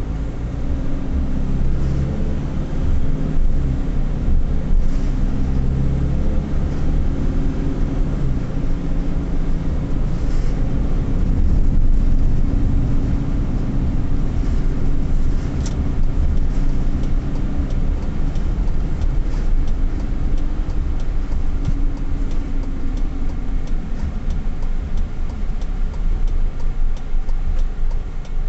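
Car engine and road rumble heard from inside the cabin while driving, the engine note shifting as the car speeds up in the first seconds after moving off.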